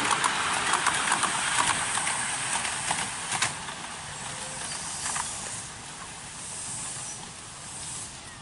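Miniature steam railway train running away on the track: carriage wheels click rhythmically on the rails, about three times a second, over a hissing rush. The sound fades steadily as the train draws off.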